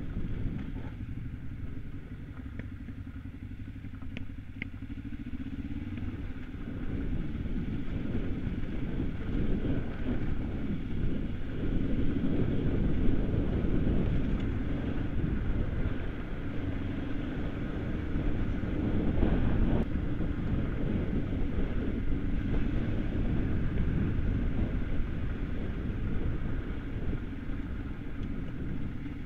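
Kawasaki KLE 500 parallel-twin engine running under way on a rough gravel track, heard from the rider's own bike. It is a steady low rumble that gets louder a few seconds in and stays up.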